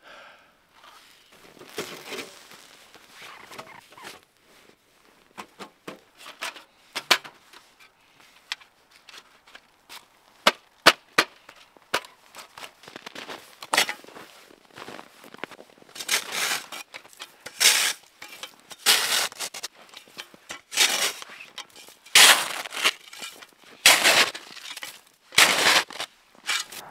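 A small snow shovel scooping and scraping packed snow: a run of loud crunching strokes about one a second in the second half. Before that, scattered sharp knocks and clanks of camp gear being handled.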